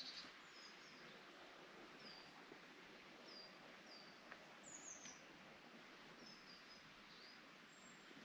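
Faint birdsong outdoors: short, high chirps that fall in pitch, about one a second, over a soft steady hiss of outdoor ambience.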